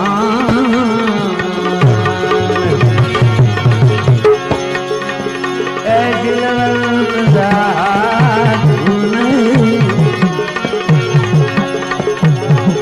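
Instrumental interlude of a Gujarati devotional bhajan: tabla keeping a rhythm under held tones and a wavering melody line. The tabla drops out for a few seconds mid-way, then comes back in.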